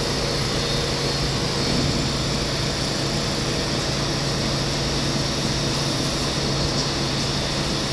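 An R211 subway car running, heard from inside: a steady roar of wheels on rail with a constant low hum.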